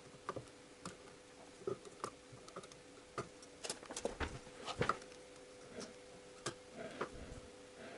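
Faint, irregular small clicks and taps as a cast-iron oil scraper ring and its expander spring are turned by hand in the groove of a car engine piston, over a faint steady hum.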